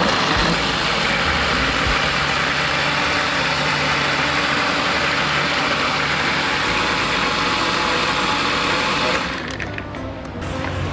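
Electric countertop blender running at speed, puréeing tomatoes, garlic and ginger into a smooth liquid. The motor runs steadily, then switches off about nine seconds in.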